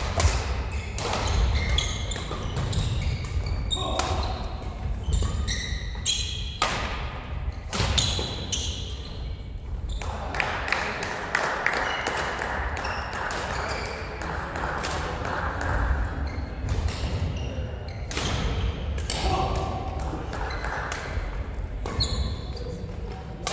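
Badminton singles rallies: rackets striking the shuttlecock with repeated sharp hits, shoes squeaking and feet thudding on a wooden sports-hall floor, echoing in the large hall, with voices in the background.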